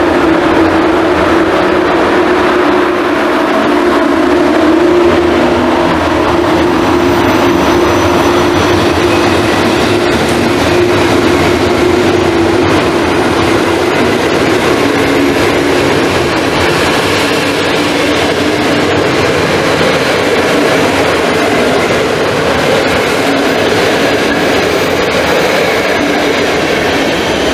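Passenger train hauled by an EP07 electric locomotive rolling slowly past, a steady rumble of the coaches' wheels on the rails. A hum runs under it and fades about halfway through.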